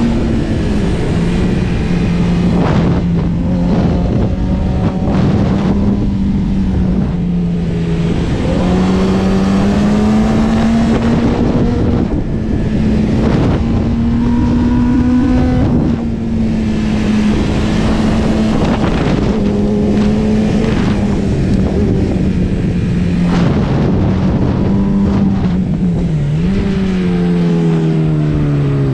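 Kawasaki Ninja ZX-10R's inline-four engine running while riding, its note rising and falling with the throttle, over wind rushing past. Near the end the revs drop as the bike slows.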